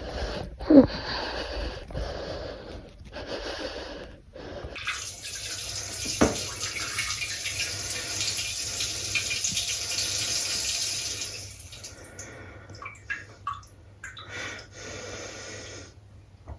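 A person urinating into a toilet: a steady stream starts about five seconds in, runs for about six seconds, then breaks into a few short trickles and drips. Short vocal sounds come just before it.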